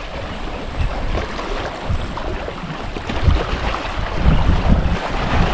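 Wind buffeting the microphone in gusts, strongest about three to five seconds in, over the steady wash of the sea at the shore.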